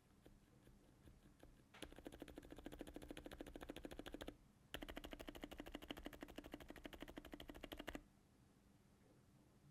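Silent mechanical keyboard switches being typed on, with soft, muted keystrokes. A few light taps come first. About two seconds in there are two fast, dense runs of rapid key presses, split by a short pause midway.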